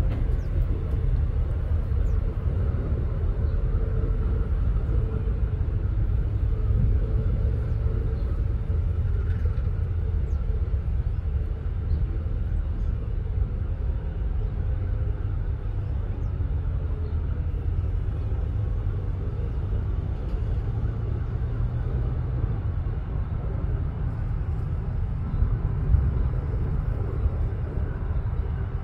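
Steady low jet rumble with a faint engine whine from an Airbus A330 MRTT twin-engine tanker descending on approach to land.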